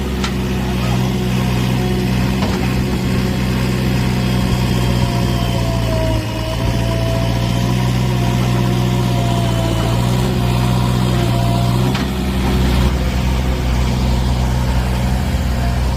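JCB 3DX backhoe loader's diesel engine running steadily, with a thin wavering tone above the engine note; the sound dips briefly about six seconds in and shifts near twelve seconds.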